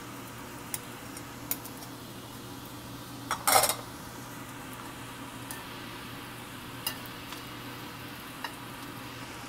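Metal spoon clinking and scraping against a stainless steel pan as scrambled egg is tipped in and stirred through fried rice, with a louder clatter about three and a half seconds in. Underneath runs the steady hum of a blower fan, with faint sizzling.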